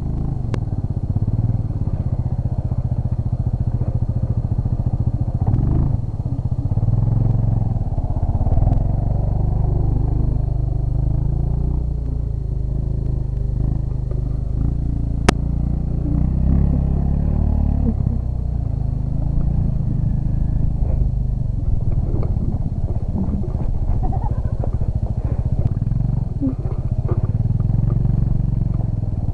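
ATV engine running steadily, its pitch shifting slightly up and down, with a single sharp click about halfway through.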